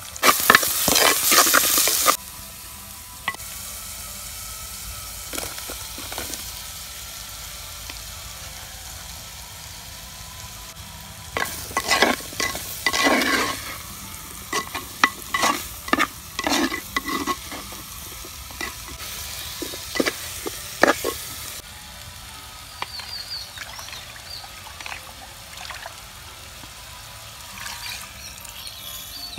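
Onions and spices frying in an earthenware clay pot: a loud burst of sizzling in the first two seconds, then a steady low sizzle. A wooden spoon stirs and knocks against the clay pot, with a run of clatters in the middle as sliced radish goes in.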